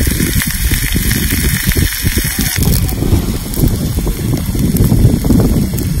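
Steak sizzling on a hot flat stone over a wood fire, with a crackle and a low wind rumble on the microphone. The hiss of the sizzle drops off suddenly about halfway through, leaving the rumble and crackle.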